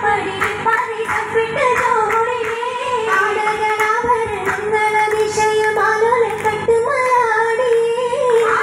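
Girls' voices singing an oppana song, the Mappila wedding song of Kerala that carries the oppana dance, one continuous melody line held without a break.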